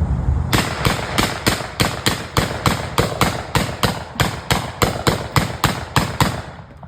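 Hand-cranked Gatling gun firing a rapid, even string of about two dozen shots, roughly four a second, stopping shortly before the end.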